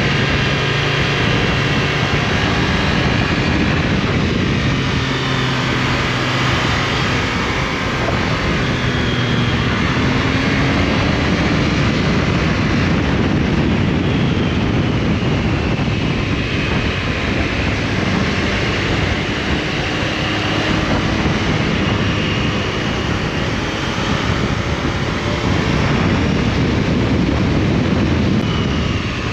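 Triumph Tiger Sport 660's three-cylinder engine heard onboard while riding, its pitch rising and falling as the throttle opens and closes through the bends, under heavy wind noise on the microphone.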